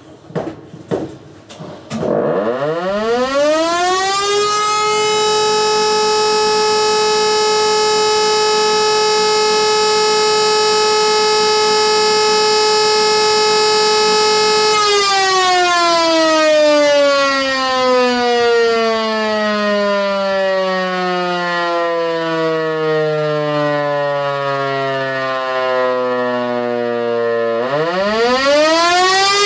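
E57 electromechanical siren sounding a German fire alarm. After a few clicks, the rotor spins up about two seconds in to a steady wail. It holds the wail for about ten seconds, winds down in a long falling glide, and spins up again near the end.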